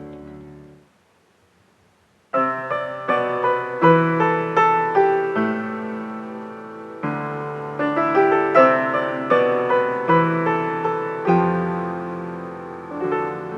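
Piano music: a chord fades out, with a short silence about a second in, and then a gentle run of piano notes and chords begins and continues.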